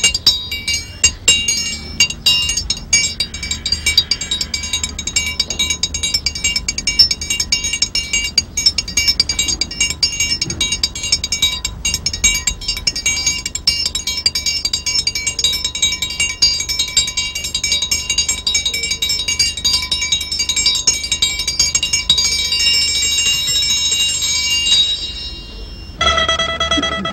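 Music of small metal bells ringing under many rapid strikes, a dense high ringing. Near the end the bells stop and a clear pitched instrument note takes over.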